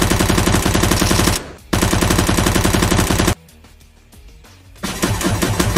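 Dubbed machine-gun sound effect: rapid automatic fire at about a dozen shots a second, in bursts. There is a brief break about a second and a half in, and a longer lull from about three and a half seconds until near the end, when the firing resumes.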